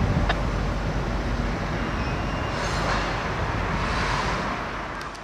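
Diesel helper locomotives passing close by: a steady rumble of engines and wheels on the rails, fading away near the end.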